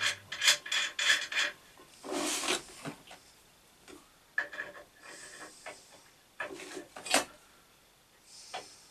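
Metal-on-metal handling noise: short bursts of scraping, rubbing and clinking as a freshly machined steel flange washer is worked onto a bench grinder's shaft. The loudest bursts come in the first second and a half. The bore is too tight for the shaft, so the washer doesn't quite go on.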